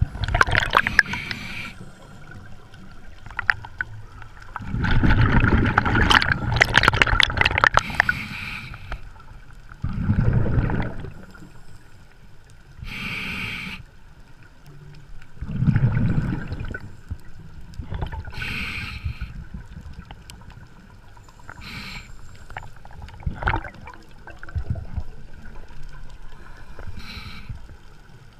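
Scuba diver breathing through a regulator, picked up underwater: long bubbling rushes of exhaled air, several seconds each, alternate with shorter hissing inhalations.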